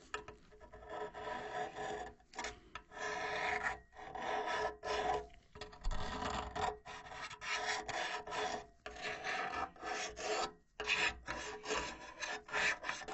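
A metal pick scraping and prodding along the corroded tubes of a Carrier 59TP6 high-efficiency furnace heat exchanger, in short irregular scraping strokes. The tubes are rusted through, and the pick pushes into holes in the metal.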